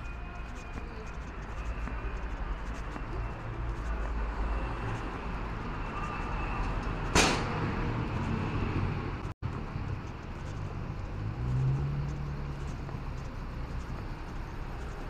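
City street traffic: a steady rumble of car engines and tyres, with one vehicle's engine hum rising in pitch and getting louder about eleven seconds in. A single sharp knock about seven seconds in is the loudest sound, and the sound cuts out for an instant a couple of seconds later.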